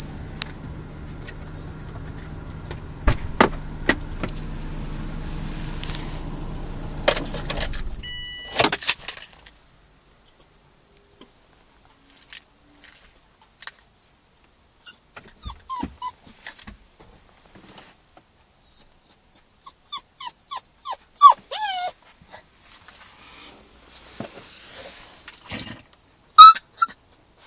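Newfoundland-Labrador mix puppy whining and yipping in a car, short high whimpers that slide up and down in quick runs, with sharp yelps as the loudest sounds near the end: a young dog's distress at being kept apart from its people. Earlier, the car's low engine hum stops about eight seconds in, followed by a jangle of keys.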